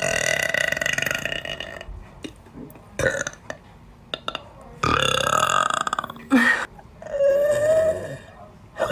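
A young woman letting out a series of loud, drawn-out burps, several in a row with short pauses between, some lasting well over a second.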